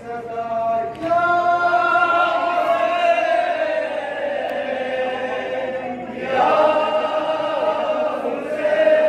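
A man's voice chanting a noha, a Shia mourning lament, with long held, gliding notes, and other male voices joining the chant. The chant breaks off briefly about six seconds in and resumes.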